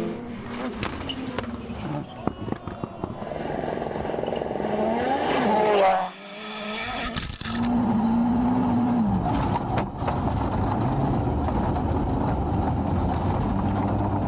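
Rally cars at speed, engines revving up and dropping away through gearshifts, over a steady hiss of tyres on gravel. The sound breaks off sharply about six seconds in, then picks up again.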